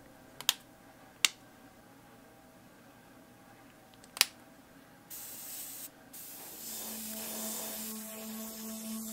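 Gravity-feed airbrush spraying paint: a steady hiss of air starts about five seconds in, breaks off briefly, then resumes. Before it come three sharp clicks.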